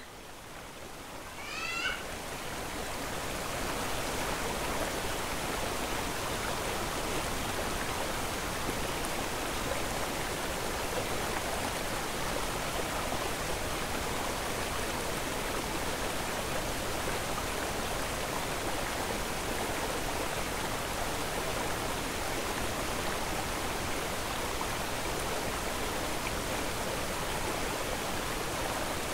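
A steady, even rushing noise swells in over the first few seconds and then holds. Two short rising bird chirps sound near the start.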